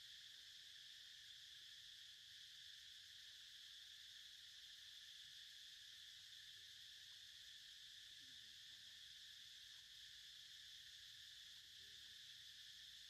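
Faint, steady insect chorus, an unbroken high hiss with no rhythm.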